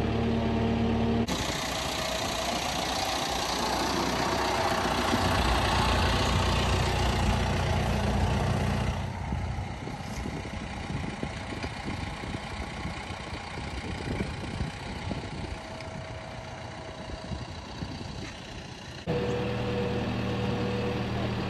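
John Deere tractor engine running. It is a steady hum from inside the cab at the start and again near the end. In between it comes through noisier and fainter from out in the pasture, quieter over the latter half.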